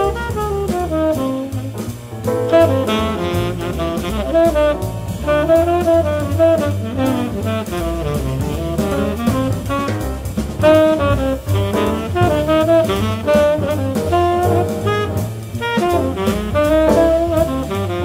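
Bebop jazz quartet recording: a tenor saxophone plays quick running lines over walking bass, piano and drum kit.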